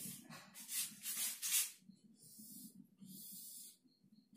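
Marker pen drawing lines on a whiteboard: three short scratchy strokes in the first two seconds, then a longer stroke about three seconds in.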